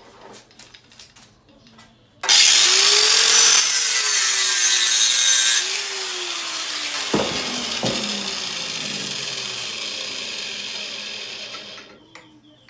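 An abrasive power tool working a short length of metal tube: a loud, harsh burst for about three seconds, then the tool winding down slowly for several seconds once it comes off the work, with two light metal knocks partway through.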